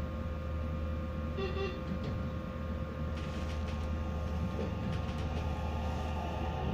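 Inside a Meitetsu 3150 series electric train: a steady low hum with held tones, and a short tone about a second and a half in. Near the end the traction inverter and motor whine begins rising in pitch as the train starts to move.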